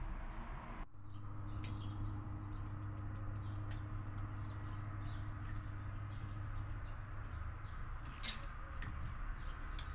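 Faint scattered taps and clicks from a male Eurasian blackbird pecking food from terracotta feeding dishes on a wooden table, over a steady low hum that begins about a second in; one sharper click comes near the end.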